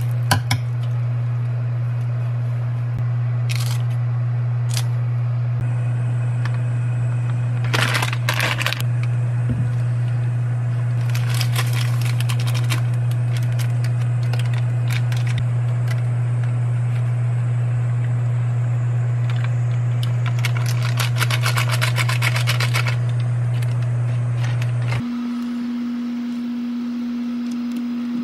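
Countertop oven running with a steady low electrical hum. Scattered clicks and two stretches of rapid crackling sound over it. Near the end the hum cuts off suddenly and a higher steady tone takes over.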